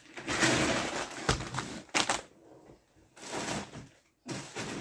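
Rustling of a shopping bag and packaging as groceries are rummaged through and lifted out, in several bursts with a couple of sharp knocks in the first two seconds.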